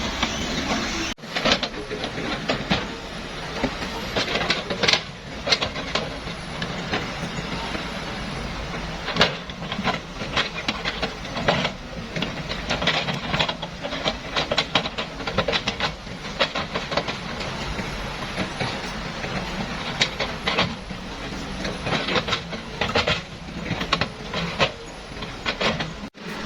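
Heavy construction machinery working: a steady hissing rumble with many irregular clanks and knocks.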